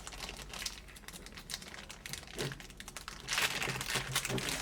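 Packaging being handled and crinkled, with irregular rustling and crackling that grows louder over the last second or so.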